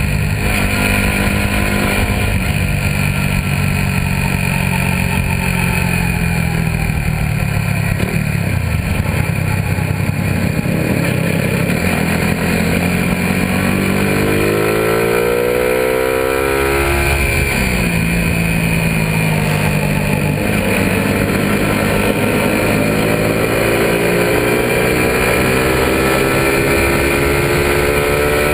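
Suzuki Raider 150 motorcycle's single-cylinder engine running while riding, with steady wind rush over the microphone. About halfway through the engine revs up, drops away suddenly, then climbs slowly again toward the end.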